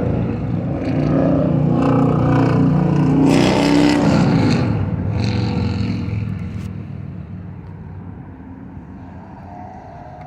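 A motor vehicle's engine, loud and close for several seconds, its pitch falling about four seconds in as it goes by, then fading into quieter road traffic.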